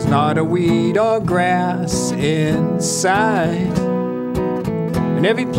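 A man singing a folk song, accompanied by a strummed acoustic guitar.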